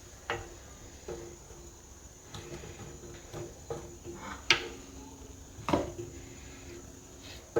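Scattered sharp knocks and clatters of wooden beehive frames being handled and flipped at a honey extractor, the loudest about four and a half seconds in and another near six seconds, over a faint steady hum.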